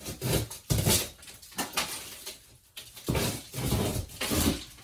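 Rough scraping and tearing strokes, about five in a row, as loose drywall tape and wall paper are cut and pulled away.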